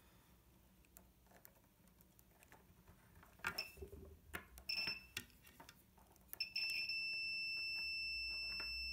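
Multimeter continuity beeper: a brief beep near the middle, then a steady high beep held for the last two and a half seconds while both test probes touch the pins of an ABS valve coil. The beep shows the coil winding has continuity, so the coil is good. Light clicks of the probe tips on the metal pins come before it.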